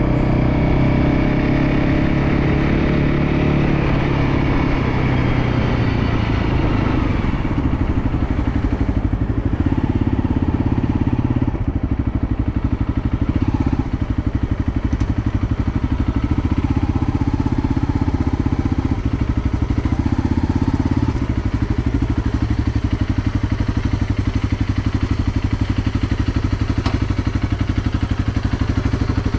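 Motorcycle engine running steadily while riding, with more high hiss over it for the first several seconds.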